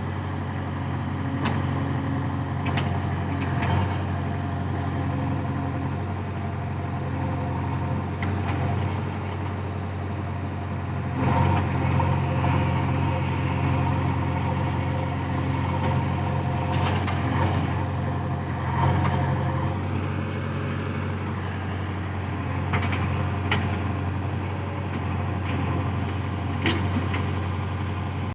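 Backhoe loader's diesel engine running steadily, with occasional short clanks and knocks from the machine working.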